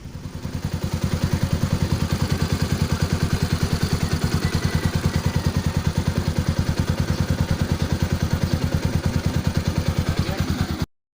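Kawasaki Rouser NS200 single-cylinder engine idling with an even, rapid low pulse, fitted with new intake and exhaust rocker arms and a new timing chain to cure its tappet noise. The sound cuts off suddenly near the end.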